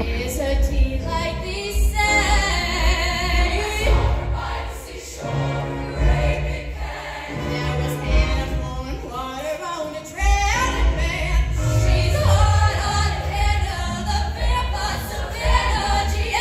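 High school show choir singing in harmony, backed by a live band with bass and drums; the sound thins briefly about ten seconds in, then comes back full.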